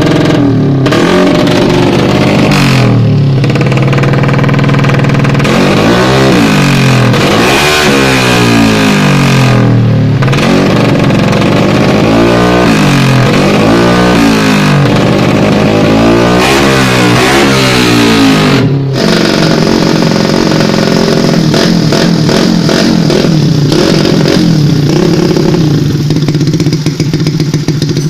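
Bored-up motorcycle engine being revved by hand on the throttle, its pitch climbing and falling again and again. About two thirds of the way through it settles back to a steady idle.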